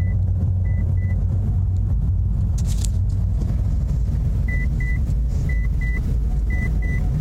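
2008 Mitsubishi Eclipse running in gear on the road with the clutch engaged, a steady low rumbling banging from the drivetrain. The banging appears only with the clutch out, stops when the clutch pedal is pushed in, and grows louder with engine RPM.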